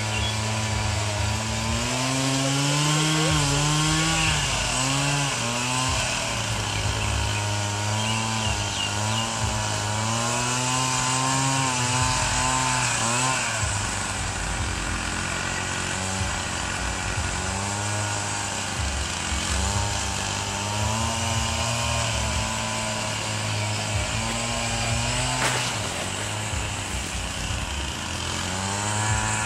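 Lure-coursing machine's small engine running continuously, its pitch rising and falling again and again as the operator speeds up and slows the line that drags the lure.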